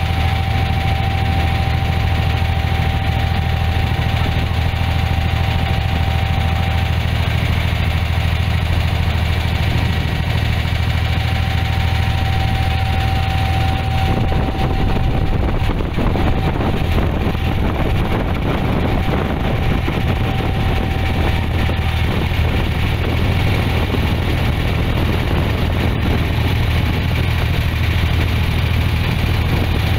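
Boat engine running with a steady low drone, heard from on board. From about halfway the noise becomes rougher and fuller.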